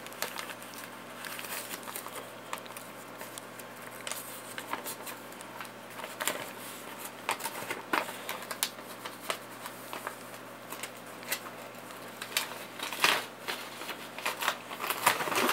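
Paper and packaging being handled: light rustling and crinkling made up of many small irregular clicks, as a folded note is taken out and opened.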